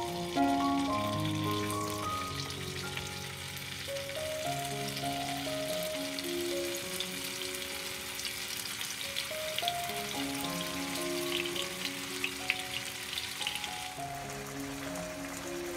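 Tofu slabs sizzling and crackling as they fry in hot oil in a wok, over background music of held melodic notes. The sizzle thins out near the end.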